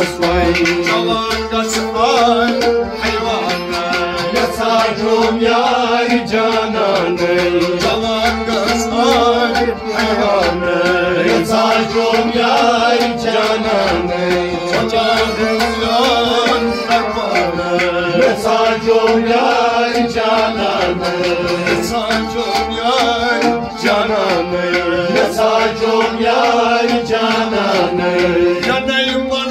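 Sufi devotional music: a sung melody over a steady hand-drum rhythm, tabla-like.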